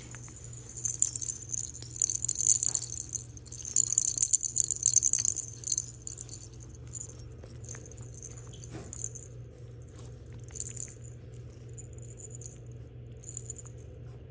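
Small bell inside a plastic lattice toy ball jingling in bursts as a puppy paws and rolls it on carpet, most continuous in the first half, then in short separate jingles.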